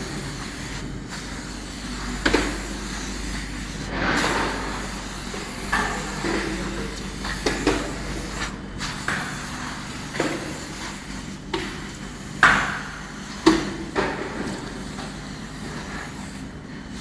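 PU sole pouring machine and its rotary mould conveyor running: a steady machine hum under irregular knocks and clanks every second or two, with a few short noisy bursts.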